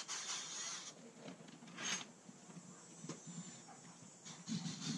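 Faint clicks and rustles of a cordless drill and drill bit being handled. About four and a half seconds in, a low steady hum starts: the drill beginning to bore into a cast aluminum engine manifold.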